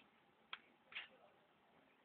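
Newly hatched quail chicks peeping: two short, high peeps about half a second apart, a second one slightly longer.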